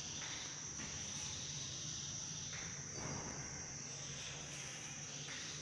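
Chalk scratching on a blackboard in short, faint strokes as words are written, over a steady high-pitched whine.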